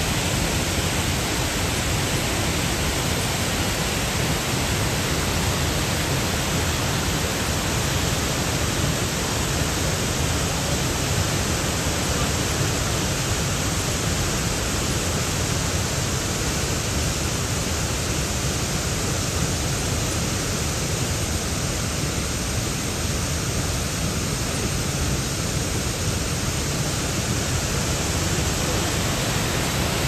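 Steady rush of the Jägala waterfall, water pouring over the falls in an even, unbroken roar.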